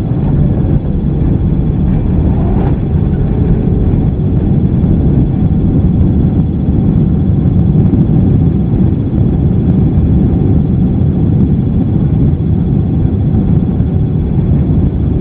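Boeing 767-300 jet engines and rushing air, heard as a loud, steady, low rumble inside the passenger cabin during the landing.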